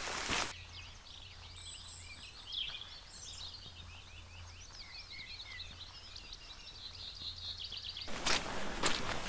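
Small birds singing: a quick run of short high chirps and warbling notes through a quiet stretch. Footsteps break off just after the start and start again about eight seconds in, louder than the birdsong.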